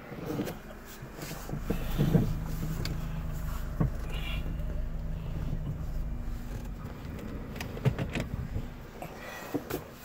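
Car engine running, heard from inside the cabin as a steady low hum, with a few sharp clicks and knocks.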